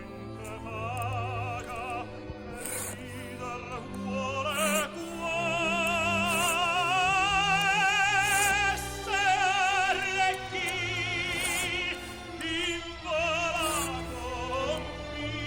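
Operatic singing with wide vibrato, held notes rising and falling over an orchestral accompaniment.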